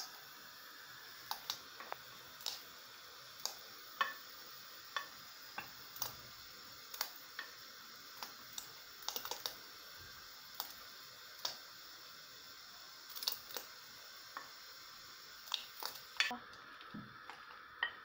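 Small bulgur-and-potato meatballs dropped one by one into a pot of boiling water: irregular short plops and clicks, about one or two a second, over the steady hiss of the boiling water.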